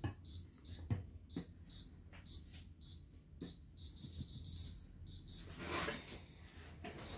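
Medek air fryer's touch control panel beeping at each press of the timer-down button as the cooking time is set, a string of short high beeps at one pitch. The beeps come about two a second, then quicken into a near-continuous run of rapid beeps about four seconds in.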